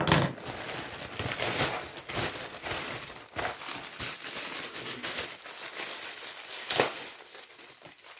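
Plastic courier mailer bag crinkling and rustling as it is handled and torn open by hand, in many short crackles, with a sharper one about seven seconds in.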